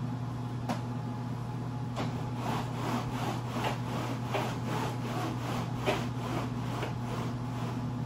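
A window roller shade being raised by hand-over-hand pulls on its cord: a run of short rasping strokes, about three a second, over a steady low hum.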